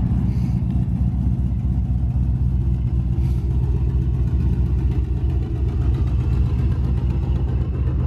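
Pickup truck's engine idling steadily.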